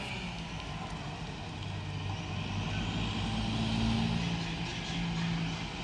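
Euro 6 garbage truck's diesel engine running, with an exhaust leak giving it an unusual note; it grows a little louder about two-thirds of the way in.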